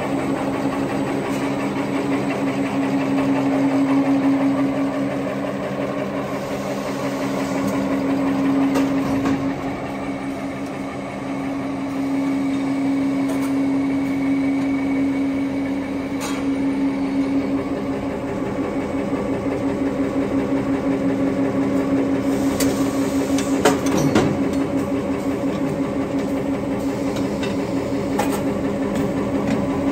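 Automatic napkin paper folding and stacking machinery running, with a steady hum and a few sharp mechanical clicks, most of them clustered a little past the middle.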